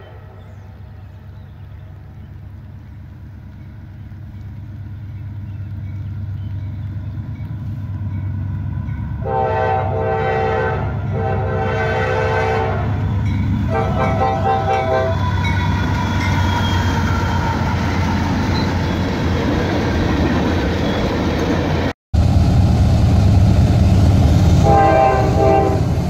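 Norfolk Southern freight train hauled by GE diesel locomotives, approaching with its engine and wheel rumble growing steadily louder. The air horn sounds three blasts about a third of the way in. After a sudden cut, a second Norfolk Southern freight passes with louder rumble, and its horn sounds again near the end.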